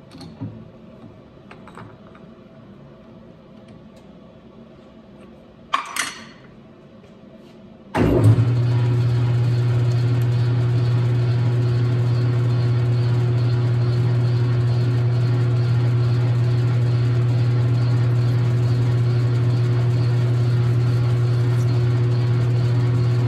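A few clicks and a short scrape as the chuck key tightens the three-jaw chuck, then about eight seconds in the Logan 6560 lathe switches on abruptly and runs with a steady hum, its chuck spinning the nylon bar stock without cutting yet.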